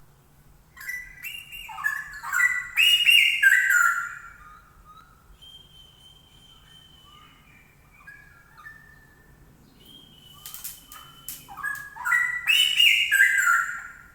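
Straw-headed bulbul (cucak rowo) singing loud, rich warbling phrases: one starting about a second in, another near the end. Softer held whistled notes come between them, and a few sharp clicks just before the second phrase.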